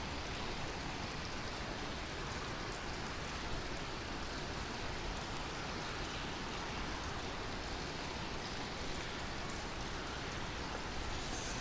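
Steady, even rush of running water, the flow in the channel beside the long tunnel stairway, echoing faintly in the concrete tunnel.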